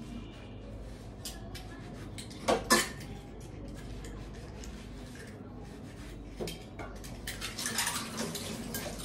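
Cutlery clinking and scraping against a dish of pasta, with two sharp louder clinks about two and a half seconds in and a run of light quick clicks near the end.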